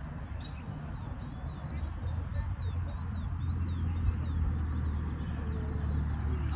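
A small bird repeating a short, arched chirp about twice a second, over a steady low rumble.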